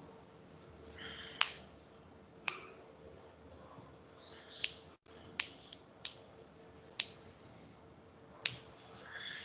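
About eight sharp, separate clicks at irregular intervals over a faint steady hum and hiss.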